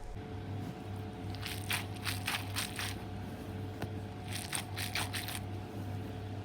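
Orbeez-filled stress balls being squeezed by hand, giving quick runs of soft squishy crunching and crackling in two bursts, the second about four seconds in.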